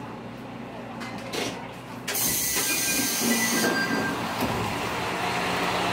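MRT300 diesel railcar standing at a station with its engine running, as its passenger door opens about two seconds in with a sudden hiss of air lasting a second or so; after that the engine and outside noise come in louder through the open doorway.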